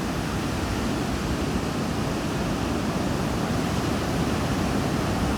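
Pacific Ocean surf breaking and washing onto a sand beach, a steady, unbroken wash of noise.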